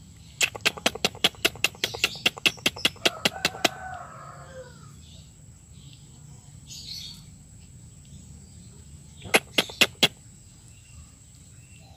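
Chicken flapping its wings in a fast run of sharp claps for about three seconds, with a rooster crowing near the end of the run. A second short burst of four claps follows about nine seconds in.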